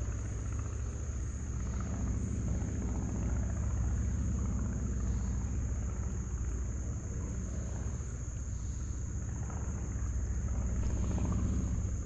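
Steady low rumble of outdoor background noise, such as wind on the microphone or distant traffic, with a faint steady high tone above it; no distinct event stands out.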